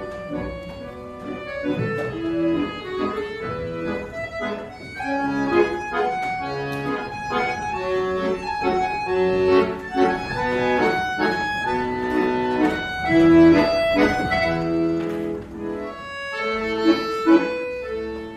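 Accordion playing a tune over held chords, the notes changing every fraction of a second.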